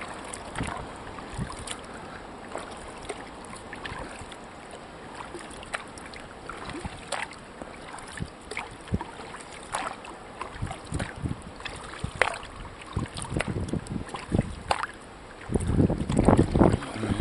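Small water splashes and drips around a kayak being paddled, scattered and irregular. Near the end, wind buffets the microphone loudly.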